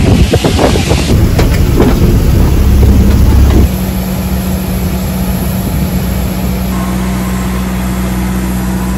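Low engine rumble and hum from a parked airliner and its ground equipment on an airport apron. The first few seconds are louder, with scattered knocks. The level drops suddenly about four seconds in, leaving a steady hum with a constant low tone.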